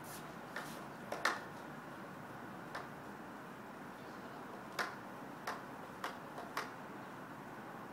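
Sharp clicks from a handheld plastic pump pressure sprayer being worked at its pump top, about eight of them at irregular intervals.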